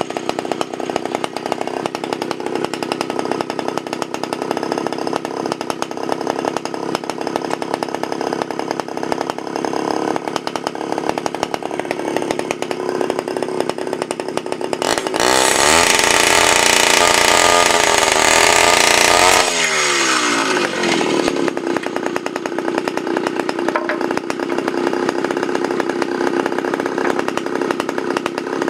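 Homelite XL-100 gas circular saw's two-stroke engine running at idle, then revved to full throttle about halfway through and cutting through a wooden board for about four seconds. The engine then winds back down to idle and starts to rise again at the very end.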